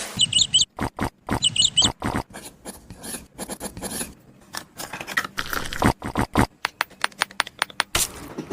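Quick scratching and scraping, broken by many sharp clicks and taps. Two short bursts of high chirps come in the first two seconds.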